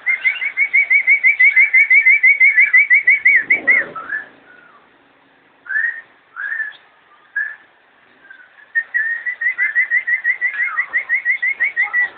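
Lovebird chattering: two long runs of rapid, evenly repeated high chirps, about seven a second, with a few single calls in the pause between them.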